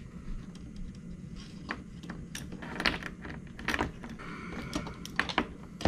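Steel trap chain links and a metal hook or swivel clinking as they are handled and hooked together: a scattered run of light metallic clicks.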